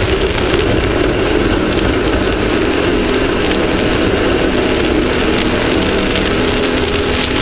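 Off-road race vehicle's engine running at a steady, even pitch, heard through an on-board camera under a constant rush of wind and driving noise.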